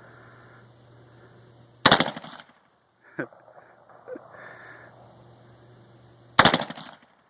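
Two single shots from an AR-15 rifle, about four and a half seconds apart, each followed by a short echo.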